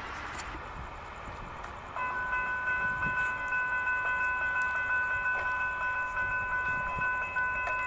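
Brightline passenger train's air horn sounding a long, steady multi-note chord for the grade crossing, starting about two seconds in and held through to the end. Light wind noise before it.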